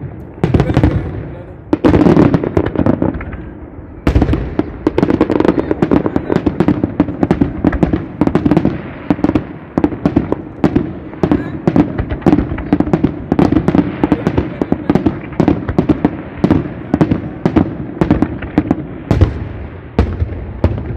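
Fireworks display: a dense, rapid barrage of shell bursts and crackling bangs, several a second, easing briefly about three seconds in and then thickening again.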